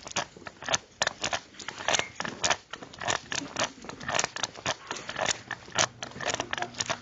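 Footsteps on a hard floor with small clicks and knocks of gear, a few a second and unevenly spaced, as people walk.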